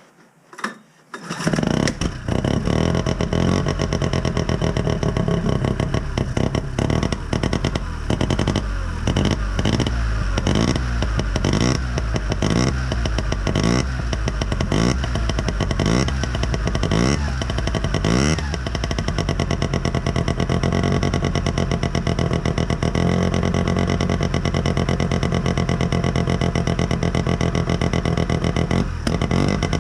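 Sachs Wankel KM914 rotary engine in a snowmobile, fired up through its modified exhaust, catching about a second in. It is then revved in quick repeated blips, rising and falling about once a second, and after that runs more steadily with smaller changes in speed.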